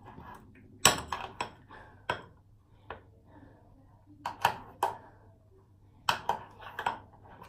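A utensil clinking and knocking against a mixing bowl as slime ingredients are stirred, in irregular clusters of sharp taps.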